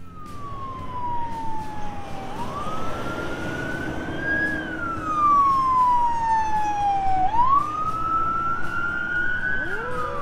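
Emergency vehicle siren in a slow wail, its pitch sliding down and back up about every five seconds, with a second siren tone rising in near the end, over low road noise.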